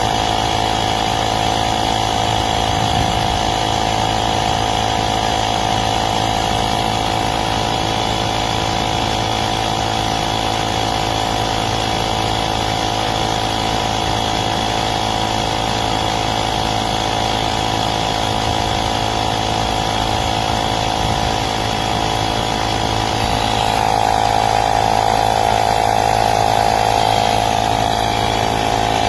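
KeenPower 21-volt cordless tire inflator's piston compressor running steadily under load, a continuous buzzing drone. It gets a little louder for a few seconds near the end.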